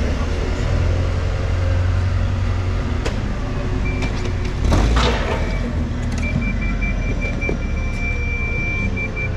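Forklift working beside a parked lorry at a loading bay: a steady low engine rumble, a short louder burst of noise about halfway through, then a high-pitched warning beeper sounding in quick pulses for the last three seconds as the forklift moves away.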